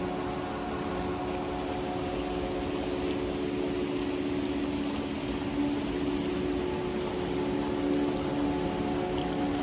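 Shallow, clear mountain stream murmuring steadily over stones, with soft sustained tones of background music underneath.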